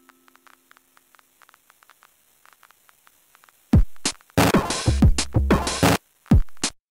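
Electronic music: a few seconds of faint, scattered clicks, then about four seconds in a loud drum-machine beat starts, with deep kick drums that drop in pitch and a repeating pattern of hits.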